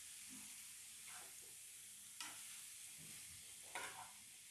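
Faint sizzling of radish pods and peas frying in a nonstick pan. A metal slotted spatula stirs spice powders through them with soft scrapes about once a second.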